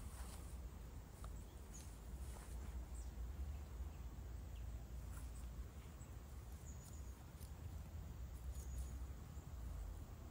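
Quiet outdoor ambience: a steady low rumble with faint, brief bird chirps here and there.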